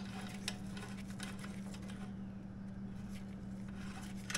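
A few faint clicks and taps of a metal band clamp being slid and positioned on a motorcycle exhaust pipe, over a steady low hum.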